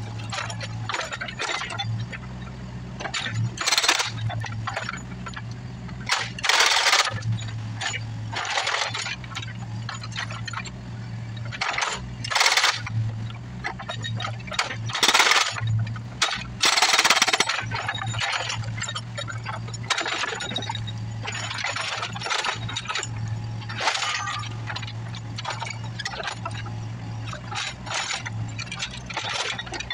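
Hydraulic rock hammer on a Bobcat 331 mini excavator breaking up a concrete slab, with the machine's engine running steadily underneath. Irregular loud cracks and clinks of breaking concrete chunks come every few seconds.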